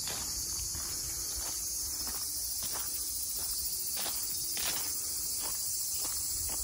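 A steady, high-pitched chorus of summer cicadas, with footsteps crunching on gravel about every two-thirds of a second.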